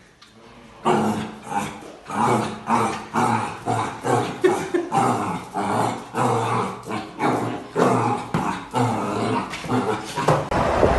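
A dog vocalizing repeatedly: a rapid run of short pitched calls, about two a second, starting about a second in.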